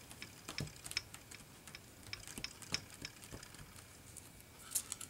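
Aluminium foil crinkling in faint, scattered small clicks as fingers press a rubber stamp down onto a foil-covered tag, with a few sharper crackles near the end.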